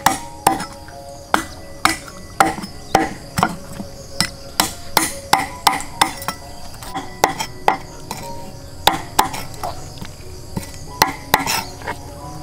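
Steel cleaver chopping a fish on a round wooden chopping block: a run of about twenty sharp chops, mostly about two a second, with short pauses between bursts.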